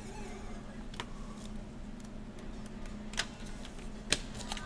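A paper score-sheet pad handled and leafed through by hand: soft paper rustling with a few short, sharp clicks and taps scattered through it. A faint steady hum lies underneath.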